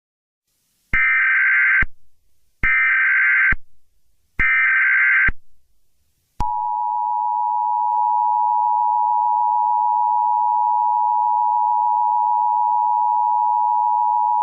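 Emergency Alert System tones. First come three one-second bursts of the SAME header's digital data tones. Then, about six seconds in, the steady two-tone attention signal starts and holds, marking the start of an emergency alert broadcast.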